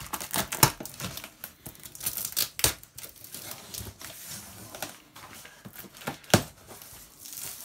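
Clear plastic packing tape being peeled and ripped off a cardboard box: irregular crackling tears, with a few sharp, louder rips.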